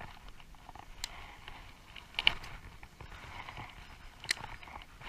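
Baitcasting reel being cranked to retrieve a lure: a soft whir in two stretches while the handle turns, with a few sharp clicks, the loudest about two seconds in.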